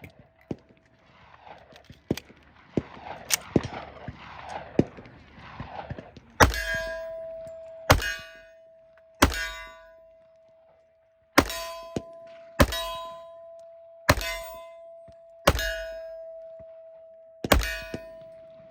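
Eight sharp shots striking a steel target, each leaving the plate ringing with a clear tone that dies away slowly; lighter clicks and knocks come first, in the opening six seconds.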